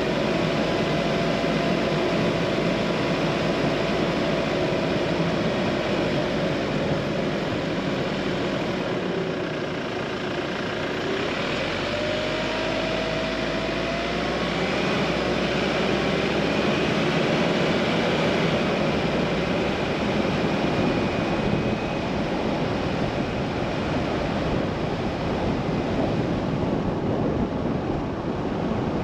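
Car driving: steady road and engine noise, with a faint whine that drifts slowly up and down in pitch.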